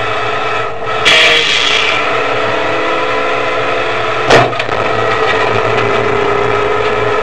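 Train horn sounding one long steady chord, with a burst of hiss about a second in. About four seconds in, a single sharp crash as the train strikes a vehicle on the crossing, the horn carrying on through it.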